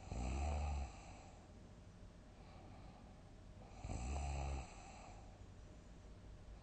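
A person snoring loudly in sleep: two deep, low-pitched snores, one right at the start and one about four seconds in, each lasting under a second, with quiet breathing between.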